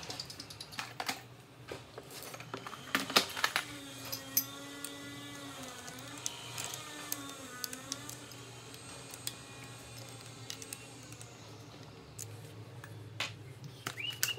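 Light clicks and knocks of hard plastic RC truck parts being handled and pressed together as a front bumper is fitted by hand, loudest and busiest in the first few seconds, with a few more near the end. Through the middle a faint wavering pitched tone runs for several seconds.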